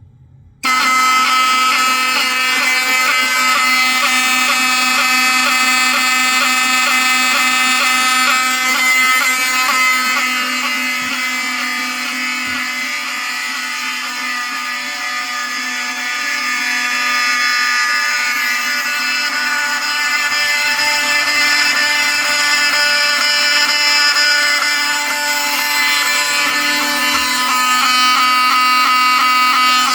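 Several vintage Wheelock 7000-series electromechanical fire alarm horns sounding together, set off by the fire panel's drill switch. A loud, steady, buzzing blare that starts abruptly about half a second in.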